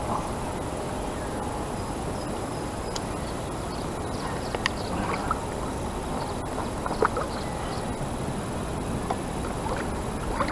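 Steady rush of river water, with a few faint clicks and taps over it.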